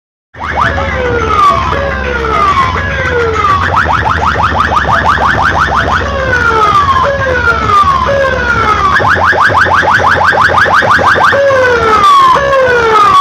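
Electronic siren sound effect played very loud through a stack of horn loudspeakers. It cuts in about half a second in and cycles like a car alarm: a few falling wails, then a run of fast rising chirps, over and over.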